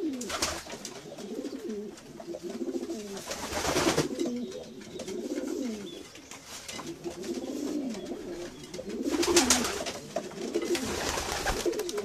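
Domestic pigeons cooing over and over in rising-and-falling phrases, with brief rustling noises about four seconds in and again after nine seconds.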